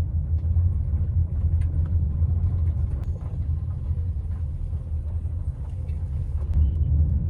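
Steady low rumble of a vehicle in motion, heard from inside it.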